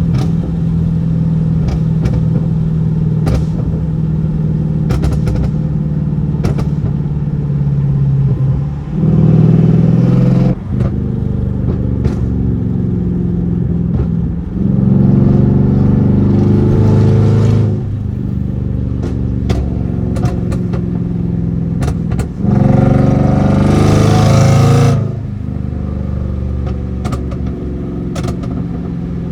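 Toyota 1UZ-FE V8 in a Lexus GS400, heard through a 2.5-inch straight-pipe exhaust with stock catalytic converters. It runs steadily and is revved up three times, the pitch rising and the sound getting louder about nine, fifteen and twenty-two seconds in.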